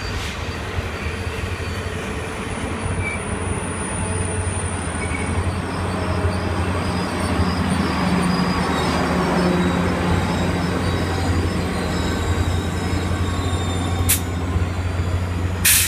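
Caltrain commuter train passing close by: bilevel coaches rolling past, then the trailing EMD F40PH-2C diesel locomotive, whose engine drone swells as it goes by. Two sharp clicks come near the end.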